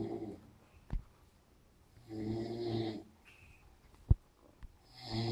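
Heavy snoring, likened to a road grader: a low, rasping snore on each breath, about one every two and a half seconds, three in all. Two short sharp clicks fall between the snores; the second is the loudest sound.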